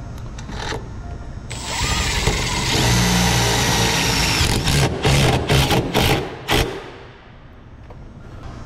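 Power drill driving a bolt through a long extension bit into a sign's mounting bracket. It runs steadily for about three seconds, then gives a quick string of short trigger bursts as the bolt is snugged down.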